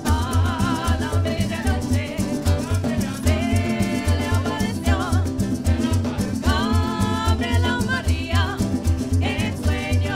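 Parang band playing live: women's voices singing with vibrato over strummed guitar and cuatro. Underneath run a steady, pulsing bass and quick rhythmic ticks.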